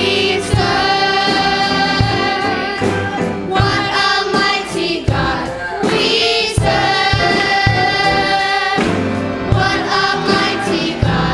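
Gospel choir singing long held notes over instrumental accompaniment, with sharp percussion hits keeping a steady beat.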